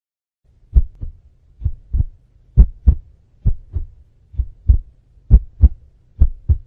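Heartbeat sound effect used as a suspense cue: seven paired low thuds (lub-dub), a little under one pair a second, over a faint low hum.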